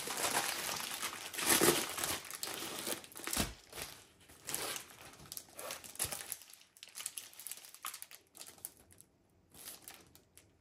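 Plastic packaging of a diamond painting kit crinkling and rustling as it is handled and opened. The rustling is busiest for the first five or six seconds, then thins out to a few faint rustles.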